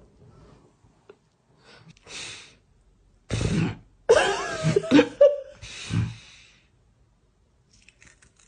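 A person's non-speech vocal sounds: several short noisy breaths or coughs, with a few brief pitched sliding sounds in the middle.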